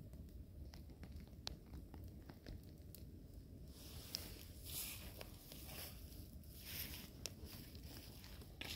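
Wood fire in a slotted log torch crackling with scattered sharp pops, over a steady low noise; two short rushes of hiss, about four and seven seconds in.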